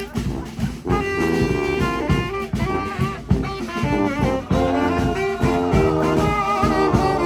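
Street band of horns and drums playing an instrumental passage: the horns hold chords over a steady drum beat.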